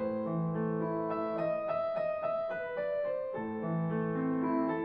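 Piano music playing slow, held chords.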